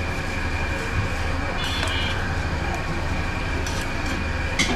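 Steady background noise of a street-food griddle kitchen: a constant low hum and hiss with a thin, steady high whine, broken by a few light clicks, the sharpest near the end.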